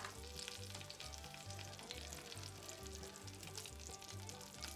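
Hot fat crackling and sizzling in a cast-iron Dutch oven as a flake of lard is spooned in. Background music with a repeating two-note bass line plays under it.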